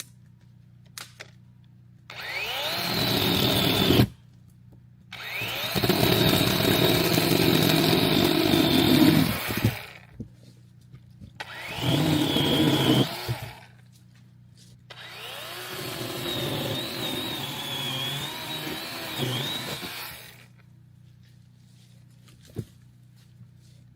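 Chainsaw cutting firewood in four bursts, two short and two of about five seconds, the engine revving up quickly at the start of each and dropping away between cuts.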